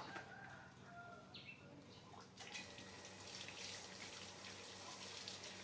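Water from a tap starts running suddenly about two seconds in, then runs steadily as an even splashing hiss.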